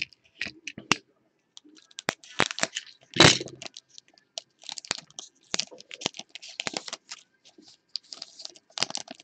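Foil wrapper of a Rookies & Stars football card pack crinkling and tearing open, with the cards rustling and clicking against each other as they are handled, and one louder crackle about three seconds in.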